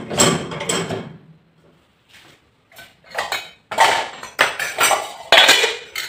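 Metal cookware knocking and clattering against a dishwasher's wire rack as a pressure cooker is set down in it: a cluster of knocks in the first second, then a run of louder clanks in the second half.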